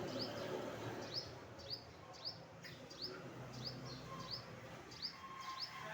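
A small bird chirping repeatedly: short, sharp, upward-hooked chirps, about two a second, over a low background hum.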